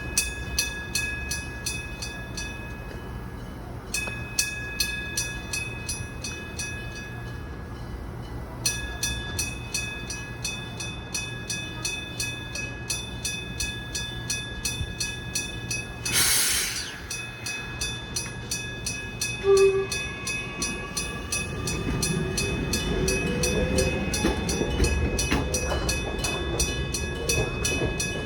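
Electric bell of a level crossing ringing at about three strikes a second, breaking off briefly twice early on. About halfway through comes a short burst of hiss, then a short toot, and from about two-thirds in the low rumble of a Kumamoto Electric Railway 03-series train moving over the tracks grows under the bell.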